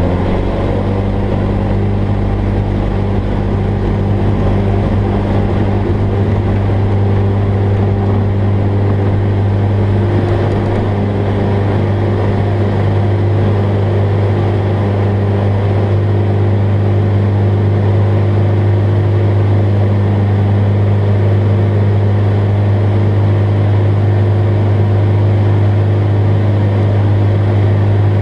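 Jabiru light aircraft's engine and propeller running steadily at full takeoff power, heard from inside the cockpit, through the takeoff roll and into the climb.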